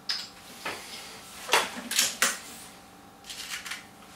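BSA Lightning SE break-barrel air rifle being handled between shots: a sharp click, then a series of mechanical clunks and clicks, consistent with the barrel being broken to cock it, a pellet loaded and the barrel snapped shut. A quick run of small clicks comes near the end.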